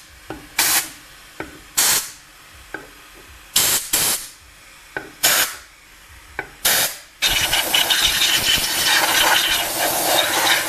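About six short blasts of compressed air from a blow gun, cleaning out the helicoiled stud holes in an aluminium Lambretta engine case. About seven seconds in, a loud steady machine noise starts and runs on.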